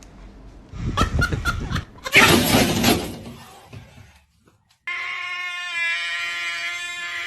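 A quick run of knocks and a loud noisy crash, then, after a short gap, a cat's long, steady yowl.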